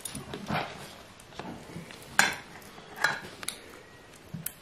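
Metal spoon clinking and scraping as wet cat food is served onto a plastic plate: a handful of separate short clicks and scrapes, the loudest about two seconds in.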